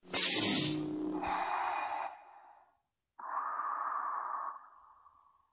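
Darth Vader's respirator breathing sound effect: a hissing mechanical inhale followed by a lower, longer exhale that fades out. A brief low sound sits under the start of the inhale.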